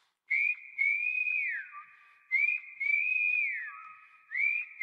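Whistled melody opening a song. Two short phrases each hold a high note and slide down to a lower one, and a third phrase starts near the end.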